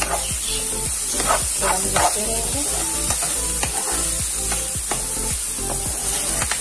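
Diced mixed vegetables sizzling in a frying pan while a metal spatula stirs them, scraping and knocking against the pan bottom with repeated short strokes.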